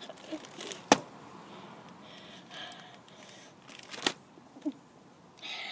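Faint rustling of trading cards being sorted through by hand, with two sharp knocks, about a second in and about four seconds in.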